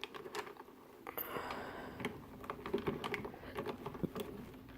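Plastic pieces of a vintage Rubik's cube clicking and rattling irregularly as its top layer is worked loose by hand.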